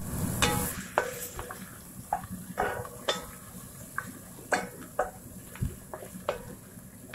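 A wooden spoon stirring diced onions and carrots in an enameled cast-iron Dutch oven, knocking and scraping against the pot about a dozen times at an uneven pace, over the steady sizzle of the vegetables frying.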